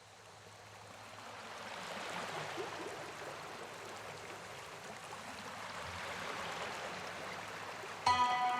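Flowing water, a steady rushing stream, fading up over the first two seconds. Music comes in suddenly near the end.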